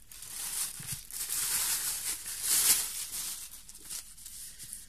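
Plastic bag rustling and crinkling as paperback manga volumes are handled and pulled out, loudest about halfway through.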